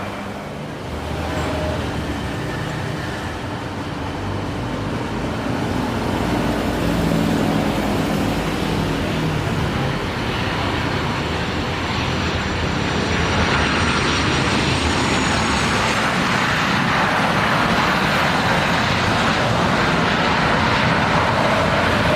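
Jet airliner engines passing near a runway: a loud, steady rush that swells partway through, with a faint high whine that falls in pitch.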